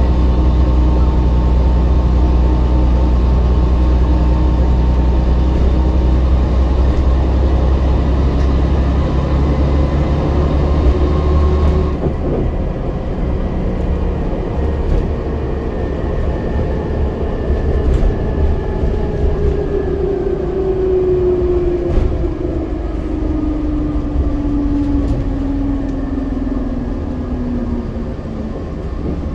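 Scania Metropolitan MD60 double-decker bus's diesel engine heard from inside the lower saloon, running loud and steady under power, then the heavy drone cuts back suddenly about twelve seconds in. After that a whine slowly falls in pitch as the bus runs on, with occasional clicks and knocks from the bodywork.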